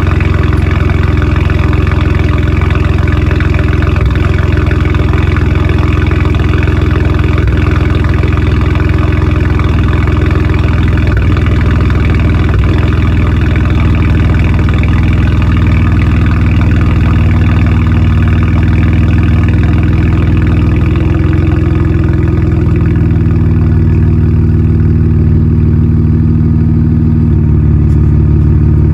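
BMW 335i's N54 twin-turbo straight-six idling shortly after a cold start, heard at the tailpipes of a straight-piped custom exhaust with catless downpipes. A loud, steady, deep exhaust drone, whose note shifts slightly a couple of times in the last third.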